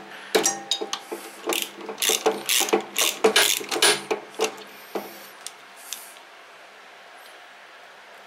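Ratchet wrench clicking in a quick, irregular run of short strokes on a nut in a snow thrower's drive assembly, stopping about six seconds in.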